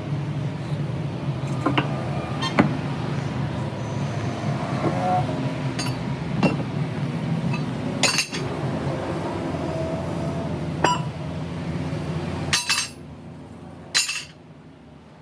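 A motor running steadily, with sharp metallic clinks and knocks every second or so, like tools striking metal. Near the end the motor noise drops away sharply, around two last loud clinks.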